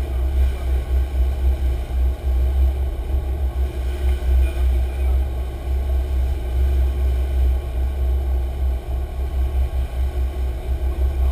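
Sport-fishing boat underway while trolling: a steady low rumble of its engines and churning wake, with wind buffeting the microphone.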